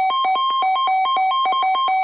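Weather radio receiver's warning alarm: a loud, rapid electronic beeping that alternates between two pitches, sounding for an incoming flood warning alert.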